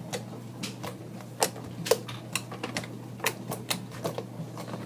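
Big batch of glue slime being pressed and handled on a flat surface, giving irregular sticky clicks and small pops, about three a second.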